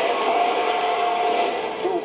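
Film trailer soundtrack heard through a television speaker, filmed off the screen: a steady held tone lasting about a second and a half over a dense mix.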